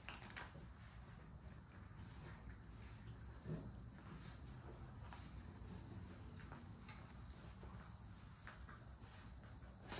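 Quiet puppy pen: faint rustling of puppies shifting in wood-shaving bedding over a low hum and a faint steady high-pitched whine, with one slightly louder soft sound about three and a half seconds in.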